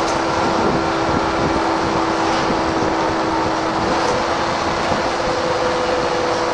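VDL SB120 Wright Cadet single-deck bus under way, heard from on board: a steady engine drone mixed with road noise. A second, higher steady tone joins about four seconds in.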